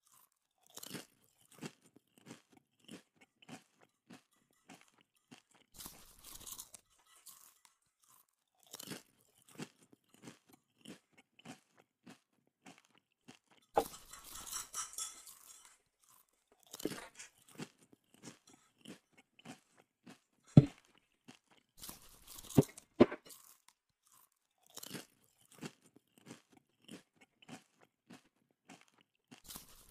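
Chicken feet being chewed: irregular crunching and cracking of bone and cartilage between the teeth, with a few sharp, louder cracks a little past the middle.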